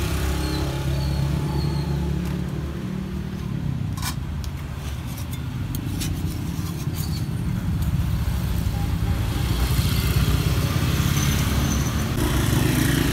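A small engine running steadily at idle close by, with a cluster of sharp metal clicks and scrapes from utensils on the martabak pan about four to seven seconds in.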